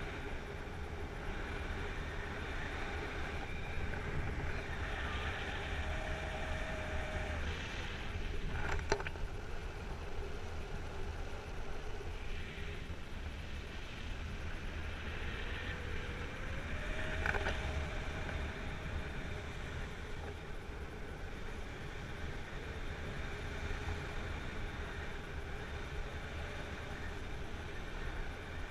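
Steady wind rush and low rumble on the camera's microphone as a paraglider flies, with a couple of brief sharp clicks, one about nine seconds in and one near seventeen.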